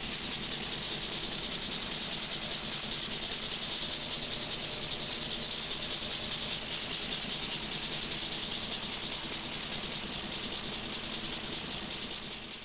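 Steady machine drone with a constant low hum: refrigeration machinery running to keep an ice-encased dinosaur frozen in its display case.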